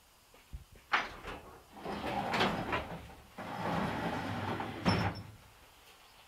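Garage door being unlatched and opened: a sharp click of the latch about a second in, then two stretches of rattling as the door moves up, ending with a knock as it comes to rest open.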